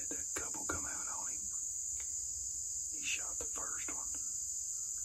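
A steady, high-pitched chorus of insects droning without a break. A man's voice comes in snatches below it.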